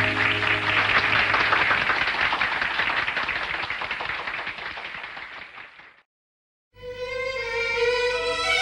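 Audience applause fading out at the end of a bolero, falling to silence about six seconds in. The next track then opens with bowed strings.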